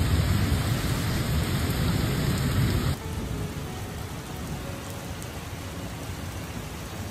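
Thunderstorm with heavy rain: a loud, low rumble over the rain for about three seconds cuts off suddenly, then a quieter, steady rain hiss.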